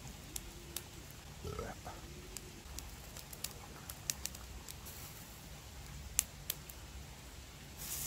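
Mackerel grilling over a charcoal fire: scattered sharp crackles and pops of dripping fat over a low steady rumble, with a short murmur of a voice in the first two seconds.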